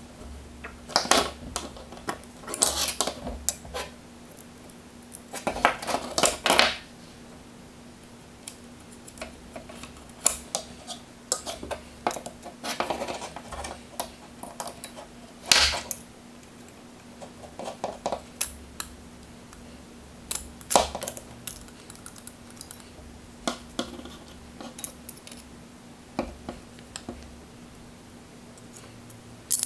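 Small metal screws and standoffs clinking and tapping against a carbon fibre frame plate and the work surface as they are handled and fitted, in irregular clusters of clicks and clatter. A faint steady hum runs underneath.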